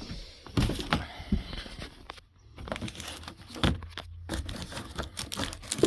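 Plastic packaging crinkling and tearing, with irregular rustles and small knocks from handling.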